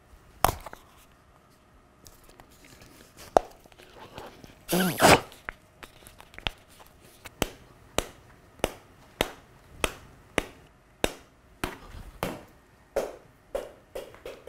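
A ball bounced over and over on a flat wooden board, a sharp wooden tap a little faster than once a second at a steady pace. There is a short shout about five seconds in.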